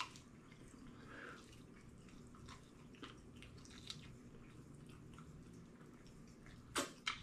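Faint wet chewing and gnawing as meat is eaten off a chicken wing, with scattered small clicks and two sharper clicks near the end.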